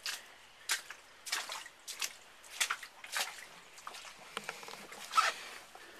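Rustling and scuffing noises: a run of short noisy sounds roughly two-thirds of a second apart, the loudest near the end.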